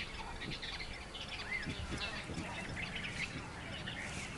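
Wild birds chirping and calling, short scattered notes with one brief arching whistle about a second and a half in, over a low steady background.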